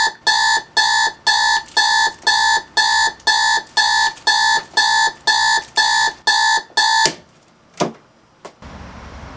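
Clock-radio alarm beeping, about two short electronic beeps a second. The beeping stops about seven seconds in, followed by two or three knocks as a hand hits the clock.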